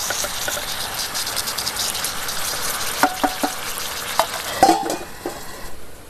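Yogurt-marinated chicken pieces sizzling in hot oil in a pan, with a few clicks and scrapes of a spoon stirring them past the middle. The sizzle drops away near the end.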